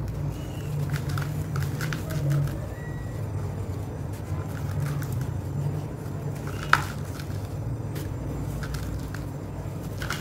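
Dry sand-and-cement mix crumbled and sifted by hand in a bucket: soft gritty crunching and scattered crackles as the clumps break and the grains pour, with one sharp crack about two-thirds of the way through. A steady low hum runs underneath.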